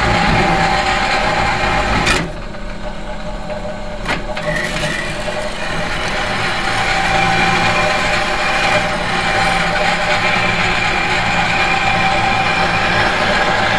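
Steady metallic machine hum with several held tones. About two seconds in it drops to a quieter, duller level, a sharp click comes about two seconds after that, and then it builds back up over the next few seconds.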